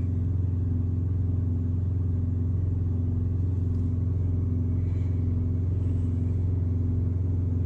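A semi truck's diesel engine idling: a steady, even low drone that holds unchanged throughout.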